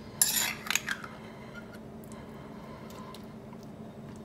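A table knife spreading creamy salad dressing over stuffed zucchini: a short wet scrape near the start and a couple of light clicks, then only faint ticks.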